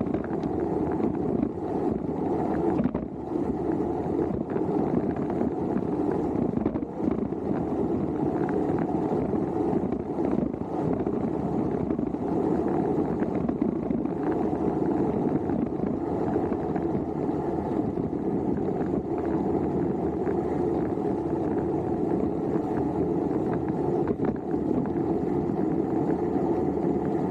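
Wind rushing over the microphone of a bike-mounted action camera as a road bike coasts at about 50 km/h: a steady rushing noise with slight buffeting.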